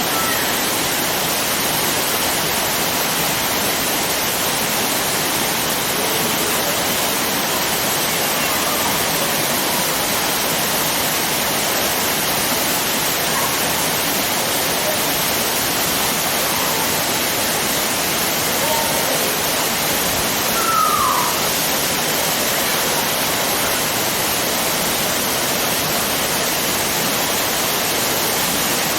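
Waterfall on a river, the water falling and rushing in a steady, loud roar of noise that does not change.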